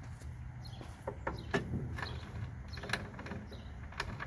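Irregular light metallic clicks and knocks, about half a dozen, from tools and parts being handled on a walk-behind mower under repair, over a steady low hum.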